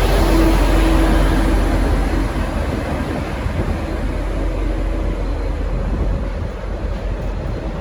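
V/Line N class diesel-electric locomotive pulling a train out, its engine a heavy low rumble with a steady hum that weakens after the first second or so, the whole sound easing off slightly after about two seconds as the train moves away.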